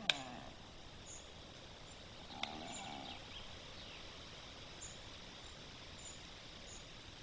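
Quiet forest ambience at a black stork nest. There is a sharp click right at the start and a click with a brief rasping sound about two and a half seconds in, and faint high chirps recur in the background.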